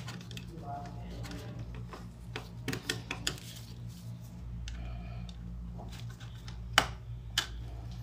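Small metallic clicks and taps of a screwdriver and wire ends being worked into the screw terminals of contactors, with the sharpest click about seven seconds in, over a steady low hum.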